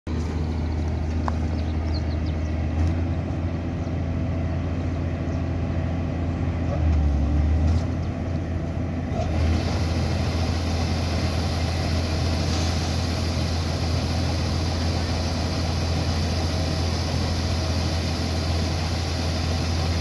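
Diesel engines of a New Holland combine harvester and a Belarus tractor running steadily side by side, a deep even drone. A higher hiss joins about halfway through.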